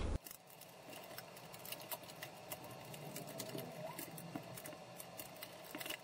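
Faint, irregular ticks and scrapes of a screwdriver turning the terminal screws of a GFCI receptacle and the wires being slipped off them.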